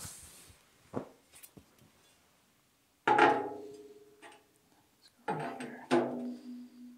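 A metal straight edge being set down on its edge on a steel welding table top for a flatness check: a light knock about a second in, then three sharp clanks, each ringing on with a clear tone, the last still ringing at the end.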